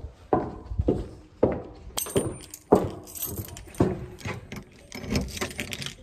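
Footsteps at a steady walking pace, a little under two steps a second, with clothing rustle and light jingling between the steps.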